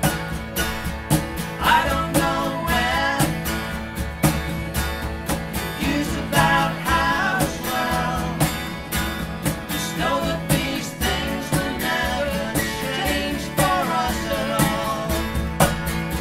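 Live acoustic band: strummed acoustic guitars keeping a steady beat, with sung melodic phrases coming and going over them.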